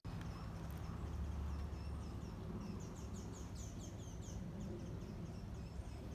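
Small songbird calling in a quick series of short, high chirps that each fall in pitch, about three a second and loudest midway, over a steady low outdoor rumble.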